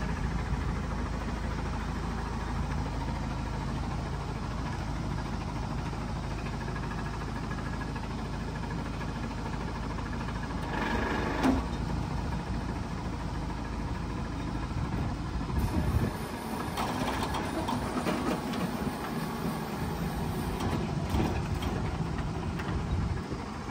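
Land Rover Defender 110's diesel engine idling steadily, a low even hum. A short sharp sound stands out about halfway through. Later the steady hum drops away, leaving uneven rumbling.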